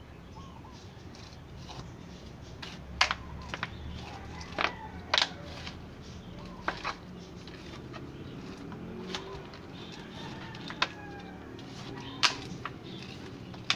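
Irregular sharp clicks and scrapes of a small plastic scoop against a plastic pot as potting soil is scooped and pressed in.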